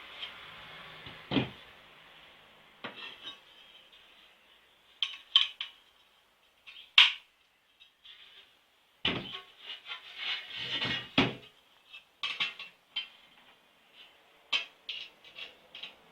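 Metal parts and tools being handled and set down, making irregular clinks and knocks with short pauses between them. The loudest clink comes about seven seconds in, and a busy run of knocks follows from about nine to eleven seconds.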